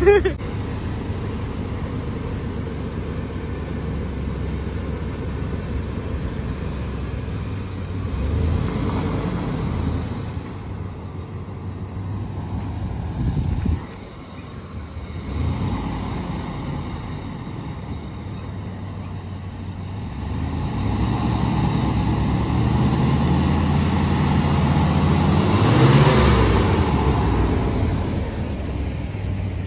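Old-body-style Chevrolet W/T 1500 pickup's engine running at low revs, then revving up in the last third with a rising and falling note that is loudest about 26 seconds in.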